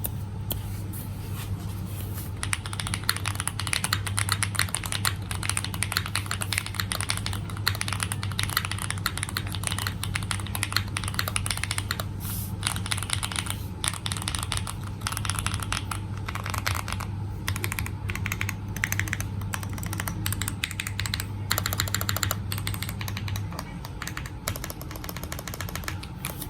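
Typing on a Qwertykeys Neo65 mechanical keyboard with Gateron Smoothie linear switches and a tape-modded PCB: a steady stream of rapid, irregular keystrokes. A low hum sits under it until near the end.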